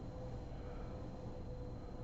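Steady low background hum and hiss with a faint steady tone, no snore: the quiet gap between a sleeping woman's snores.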